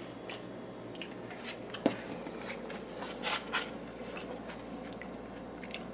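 Faint handling of takeout packaging, a styrofoam container and foil, over a low steady hum: a sharp click about two seconds in, then two short scrapes a little after three seconds.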